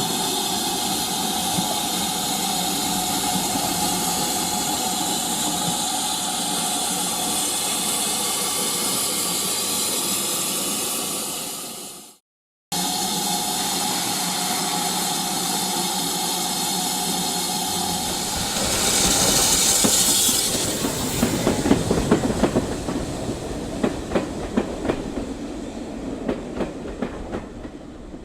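OO gauge model train running on track: a steady running hum with wheel noise, which fades and breaks off about twelve seconds in, then resumes. About two-thirds of the way through comes a short burst of hiss, followed by irregular clicking of wheels over rail joints that fades away.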